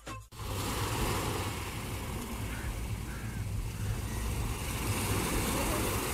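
Small sea waves washing onto a sandy beach as a steady rush, with a low rumble underneath, beginning abruptly a moment in after a brief gap.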